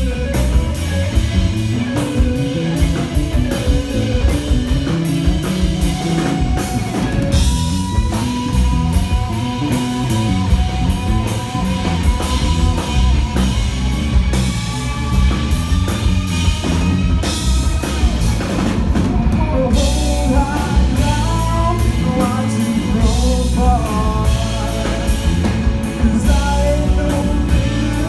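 Live rock band playing loudly: an electric guitar plays long, held notes that bend in pitch, over bass guitar and a drum kit.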